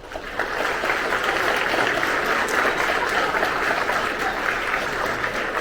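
Large audience applauding, a steady dense clapping that starts suddenly and holds at full strength.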